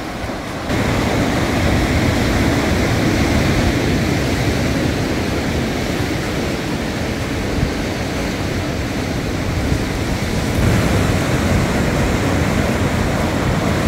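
Sea surf breaking and washing over lava rocks along the shore, a steady rushing noise. It gets abruptly louder about a second in and changes in tone again near the end.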